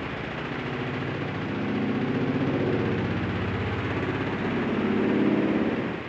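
Washing machine motor and drum running with a steady low hum that swells twice and eases off near the end, sounding normal again once the water tap has been shut off.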